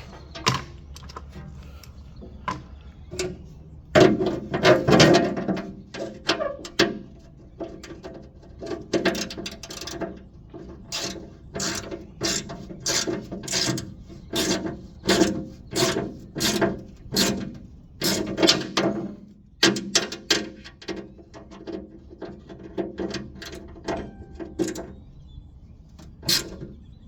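Ratchet wrench clicking in repeated strokes as a bolt is tightened, in bursts and at times a steady run of about two clicks a second.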